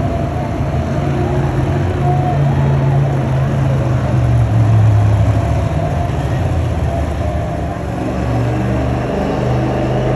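Monster truck's supercharged V8 engine running loud in an arena, its low note swelling and easing off several times.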